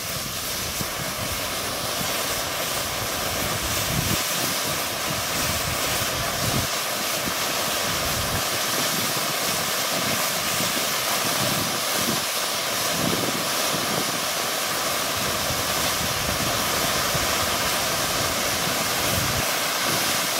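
RSR Fireworks Ashley white ground fountain burning, spraying sparks with a loud, steady rushing hiss.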